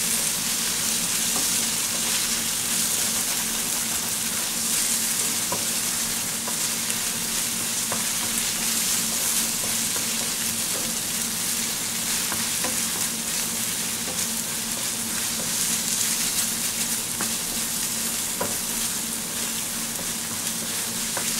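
Chopped onions sizzling steadily in oil in a stainless-steel frying pan, stirred with a wooden spatula that scrapes and taps the pan now and then. The onions are well softened, with oil starting to separate from them.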